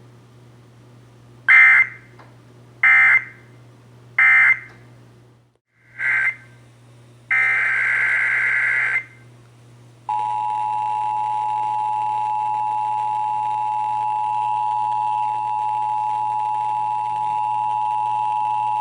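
Emergency Alert System data tones: three short bursts of digital screeching, then a short burst and a longer one that open the next alert. After that the two-tone EAS attention signal sounds steadily for about eight and a half seconds, over a low mains hum.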